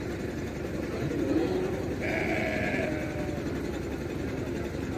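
Young sheep bleating a couple of times, about one to three seconds in, over a steady murmur of voices from the livestock market.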